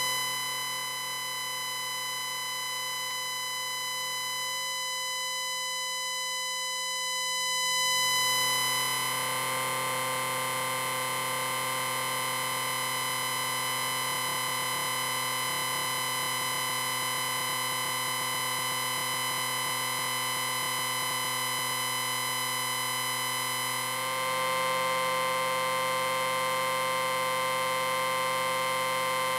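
Amplifier beep: a steady electronic whine of several held tones over a hiss. The hiss thickens about eight seconds in, and the whole sound steps up in loudness near the end.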